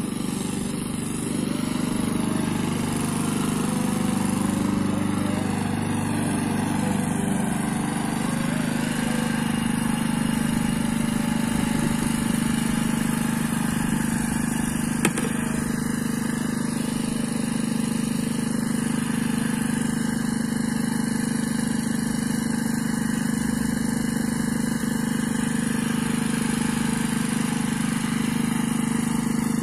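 Walk-behind petrol rotary lawn mower engine running steadily at an even pitch, with one short sharp click about halfway through.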